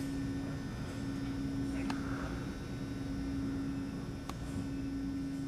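A steady hum at one pitch over a low rumble, with a couple of faint clicks.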